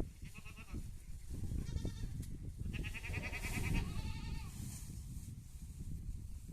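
Goats bleating, about four quavering calls, the longest and loudest about three seconds in, over a steady low rumble.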